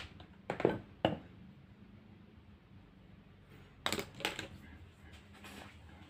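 A few short, sharp clicks and knocks of small hard objects being handled: three in the first second, then a few more from about four seconds in.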